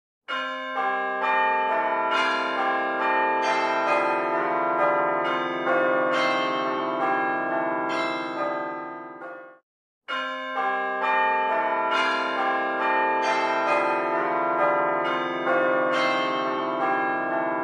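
A melody played on ringing bells, made of many overlapping struck tones that die away; the passage of about nine seconds fades out, breaks off briefly about ten seconds in, and then plays again.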